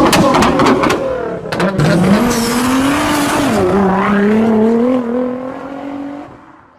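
Car engine revving: a pitch that climbs, dips and then climbs slowly for several seconds, fading out near the end. A rapid run of clicks sounds in the first two seconds.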